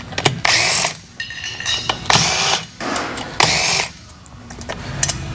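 Cordless power driver spinning out loose rocker box bolts in three short whirring bursts.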